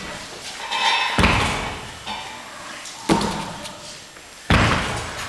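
Baby Inch globe dumbbell lifted and set back down on a stack of rubber-coated weight plates in repeated reps. Three heavy thuds, about a second in, at about three seconds and near the end, each fading over about a second.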